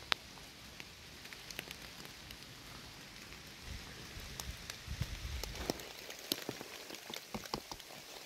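Rain pattering on wet leaf litter: a steady soft hiss with scattered sharp drop ticks, the loudest just after the start. A brief low rumble comes around five seconds in.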